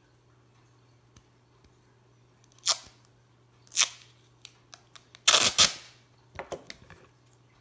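Clear adhesive tape being pulled off its roll: two short rasping rips a second apart, then a longer, louder rip, followed by a few small clicks and taps.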